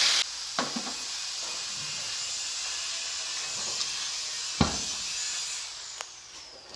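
Steady hiss, loud at the very start and fading near the end, with one sharp knock about four and a half seconds in.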